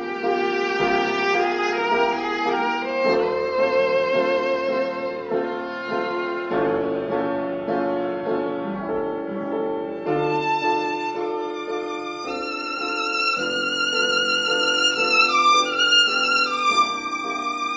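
Violin played with a bow: a melody of sustained notes with vibrato, climbing to high, long-held notes about twelve seconds in.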